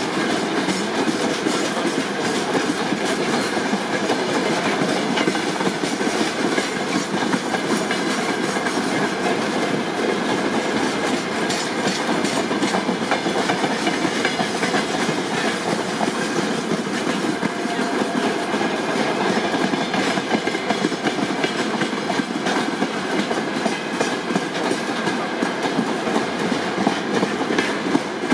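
Freight train of railway tank cars rolling past close by: a steady rumble of wheels on rail with the clickety-clack of wheelsets crossing rail joints.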